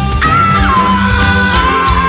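Background music: a song with a steady bass line and a high melody note that comes in just after the start and is held, sliding slightly down and wavering.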